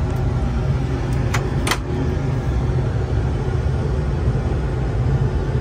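Steady low rumble of engine and airflow noise on a Boeing 747-400 flight deck during the initial climb after takeoff, with two short clicks about a second and a half in.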